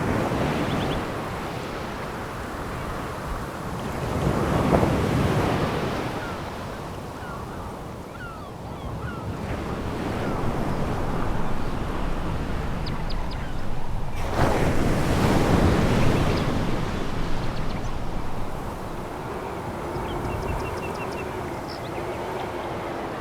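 Sea waves breaking and washing over a pebble beach, with the surf hiss swelling twice, about five and fifteen seconds in, and easing between.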